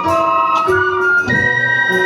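Church music played on an electronic organ or keyboard, sustained chords shifting every half second or so.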